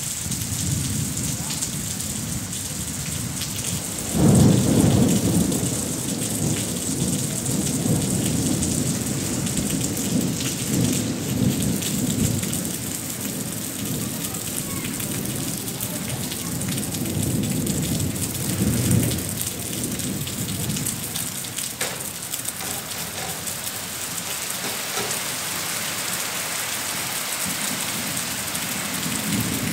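Steady rain falling, with a roll of thunder that breaks in suddenly about four seconds in and rumbles on unevenly for about fifteen seconds before dying away.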